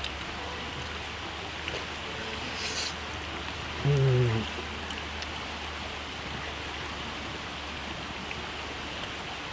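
Steady rush of a river flowing over rocks, with a man's short low hum of enjoyment about four seconds in while he eats.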